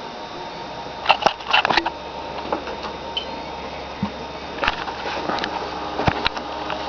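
Failing Western Digital Protégé WD200 IDE hard drive making odd noises: irregular clicks and ticks, a cluster of them about a second in and more near the end. Underneath is the steady whir and tonal hum of the running computer and its noisy fans.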